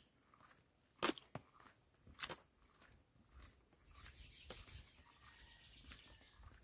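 Faint footsteps of a person walking on a concrete forest path, with a sharper knock about a second in. A high insect buzz swells from about four seconds in.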